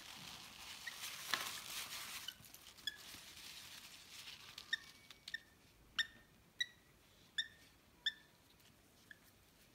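Hand-reared lovebird chick giving short, high peeps, about one to two a second, the begging calls of a hungry chick at hand-feeding. For the first two seconds a paper towel rustles as the chick is wiped.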